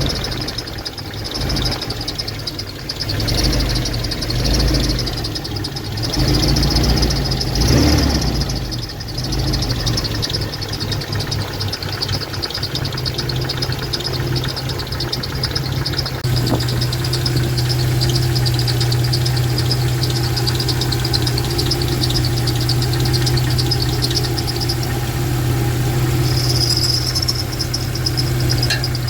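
Jeep Wrangler YJ's AMC 150 four-cylinder engine running, its speed shifting in the first half and then settling to a steady idle, with a continuous high-pitched whistle from under the hood. The whistle is the kind the owner traces to the accessory drive belt rather than the water pump or power-steering pump bearings.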